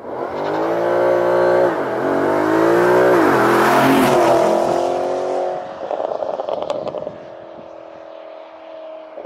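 Porsche Panamera GTS's 4.8-litre V8 accelerating hard past, revs climbing with two quick upshifts before it goes by about four seconds in. After it passes, a burst of crackles from the exhaust, then the engine note fades away.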